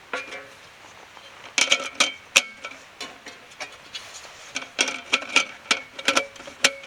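A run of sharp metallic clinks and taps, several of them ringing briefly, in two clusters: one about one and a half to two and a half seconds in, the other near the end.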